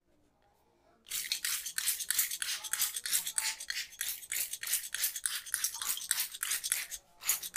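Hands rubbing briskly through hair and over the scalp in a head massage: a rhythmic scrubbing at about three to four strokes a second that starts about a second in and pauses briefly near the end.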